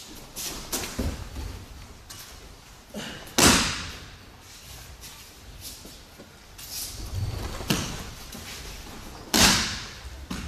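Two loud thuds of bodies landing on tatami mats in aikido breakfalls, about six seconds apart, with softer rustling and shuffling of gi, hakama and bare feet on the mat between them.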